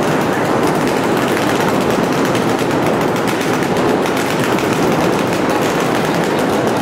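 Paintball markers firing in rapid, overlapping streams from several players at once: a dense, continuous rattle of shots.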